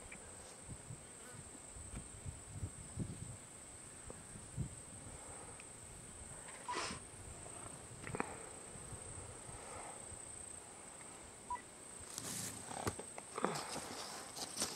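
Steady high-pitched insect chirring, with scattered low wind rumbles on the microphone and a few brief soft rustles.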